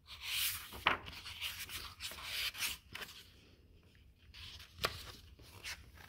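A hand rubbing across and turning the paper page of a hardcover picture book: a papery rubbing and rustling, with a sharp crinkle about a second in, a quieter pause, and more rustling near the end as the page goes over.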